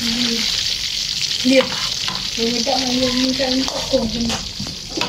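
Hot oil with chopped bits in it sizzling steadily in a wok as it is stirred with a spatula.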